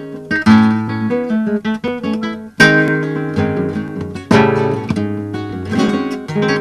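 Background music: an acoustic guitar strumming chords, with a strong strum roughly every second and a half to two seconds and lighter notes in between.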